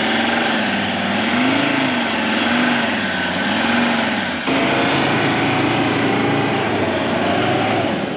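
Ford Ranger's engine labouring as it tries to drag a caravan through soft sand on fully inflated tyres, its revs rising and falling about once a second. The sound changes abruptly about halfway through, then the engine keeps working.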